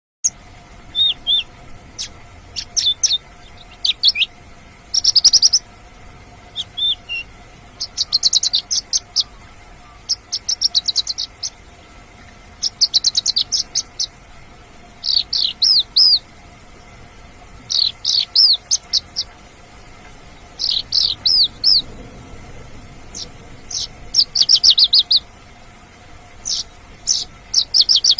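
Mongolian lark singing: phrases of rapid, sharp trilled notes, each about a second long and repeated every two to three seconds, with a few separate short chirps in between.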